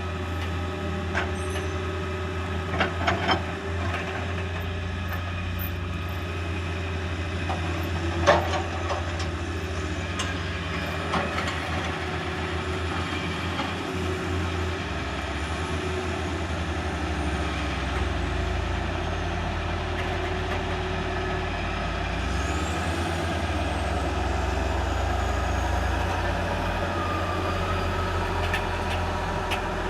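Heavy truck engine running steadily with a low hum, with a few sharp clanks about three seconds in and one louder clank about eight seconds in.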